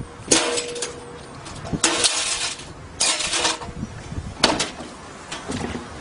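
A metal clank at the front-loading washing machine's door and drum, with a short ring after it, followed by several brief rustling, scraping noises.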